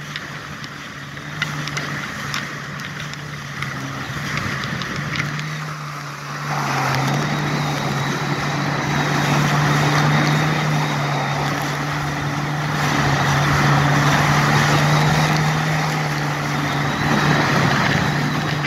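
Jet ski engine running steadily at speed, a constant low hum, with water spray and wind rushing over it. The rush grows much louder about six seconds in.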